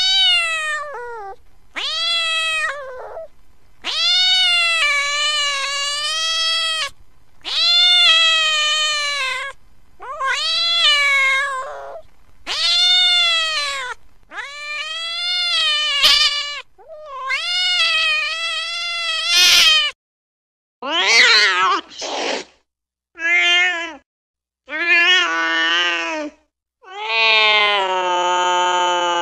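Domestic cat meowing: a string of about a dozen long, drawn-out meows, each lasting one to three seconds with short gaps between them. The last few calls are lower-pitched.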